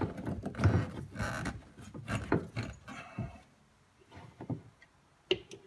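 PVC pipe and a plastic ball valve being handled and fitted together against a wooden bench top: clunks, knocks and scraping, busiest in the first three seconds, then a single sharp knock near the end.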